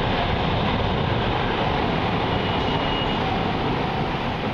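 Steady, loud rumble of a MARTA subway train running through the underground station, echoing in the concourse.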